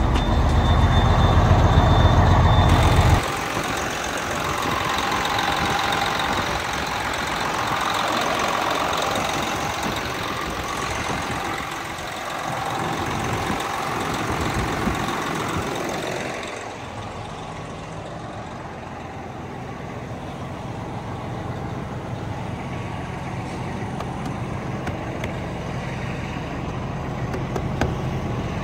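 Semi truck's diesel engine running. The sound changes abruptly about three seconds in, and turns quieter and steadier a little past the middle.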